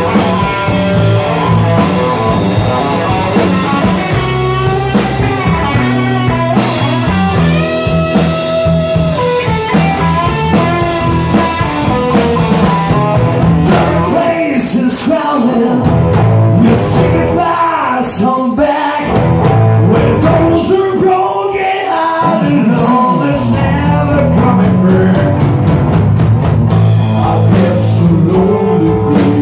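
Live rock'n'roll band playing: acoustic and electric guitars with a drum kit, and a man singing. Partway through, the low end thins out for several seconds before the full band comes back in.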